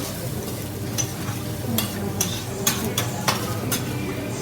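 Food sizzling on a hibachi teppanyaki griddle, with a metal spatula clicking sharply against the steel several times in the second half.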